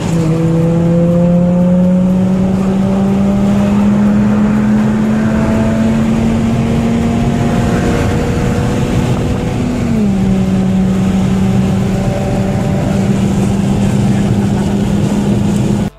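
Volkswagen Jetta driving, heard from inside the cabin: a steady engine drone over road noise. The engine note climbs slowly as the car gathers speed, then drops about ten seconds in.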